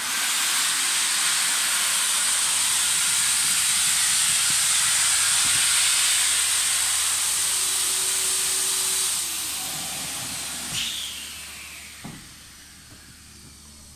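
Loud steady hiss of air rushing through a hose into an inflatable PVC boat, starting abruptly and fading away over the last few seconds, with a couple of small knocks as it dies down.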